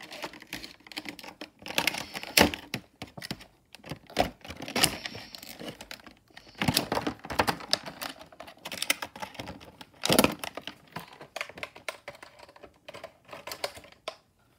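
Clear plastic blister packaging of a toy figure being handled and worked open, crinkling with irregular clicks and snaps.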